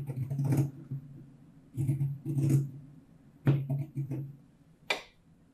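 Pinking shears snipping through the curved seam allowance of a fabric bag lining, in three runs of short cuts, then one sharp click near the end.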